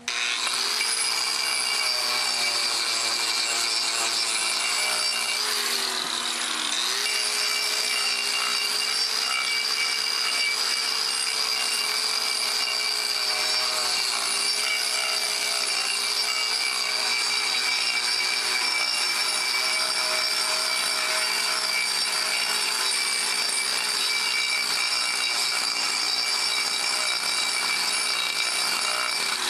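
Corded angle grinder running with a disc pressed on the end grain of a wooden round, grinding its top flat. The steady motor whine dips in pitch once about six seconds in as the grinder slows under pressure, then comes back up.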